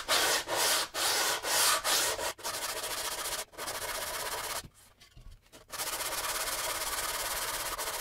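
Sandpaper wrapped on a hand-held wood block rubbing back and forth along the edge of a wooden cutting board. It starts as separate strokes about two a second, then turns into faster, steadier scrubbing, with a pause of about a second a little past halfway.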